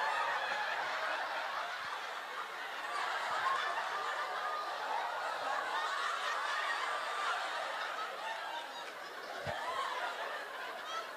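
Theatre audience laughing, many voices at once in a long, steady wave of laughter.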